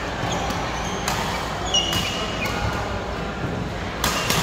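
Badminton rackets striking a shuttlecock during rallies: sharp hits about a second in, at two seconds, and a quick pair near the end, over the steady noise of a busy hall. A short high squeak of shoes on the court floor comes just before the second hit.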